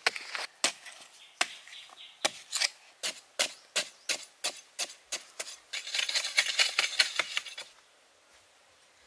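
Long-handled hoe chopping into packed sandy soil, a sharp strike about two to three times a second, then a short spell of dense scraping and crumbling dirt that stops a little after three-quarters of the way through.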